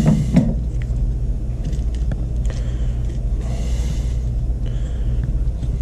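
A steady low rumble throughout, with faint scraping and rustling as a fillet knife works through burbot flesh toward the rib bones, the clearest scrape about three and a half seconds in.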